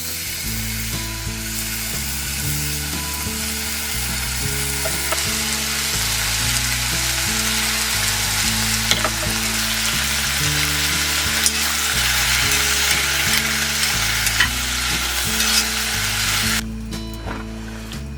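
Food sizzling and frying in a hot pan, a steady hiss with scattered pops, growing a little louder before it cuts off suddenly near the end.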